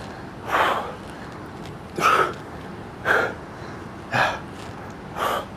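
A man's sharp, forceful exhales, one with each side crunch, about one a second, five in all.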